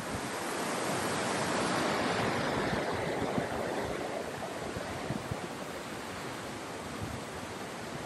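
Steady rush of Dynjandi waterfall's falling water, with wind buffeting the microphone as a low flutter. It swells in over the first couple of seconds and slowly eases off.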